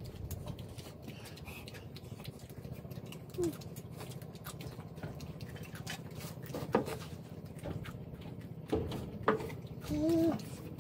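Small clicks and crackles of boiled shrimp being peeled and chewed by hand, over a low steady hum. A few brief voice sounds come about three and a half seconds in and again near the end.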